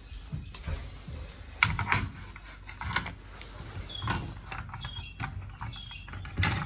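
Pliers working at a small capacitor on a TV circuit board: scattered clicks and scrapes of metal on the board, with a few short squeaks about four seconds in.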